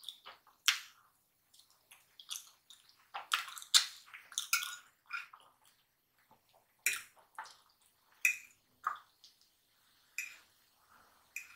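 Close-miked eating of fried chicken and mashed potatoes: scattered wet chewing and mouth smacks, with short clicks of a metal fork against a plate.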